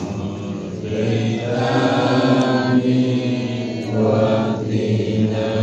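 An Arabic prayer chanted in a low male voice, in long held phrases with short breaths between them.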